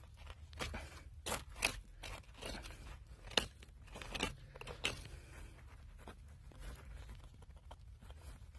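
Digging in old dump fill: scattered crunches and scrapes of dirt and debris being worked loose around a buried bottle, several sharp ones in the first five seconds, then quieter.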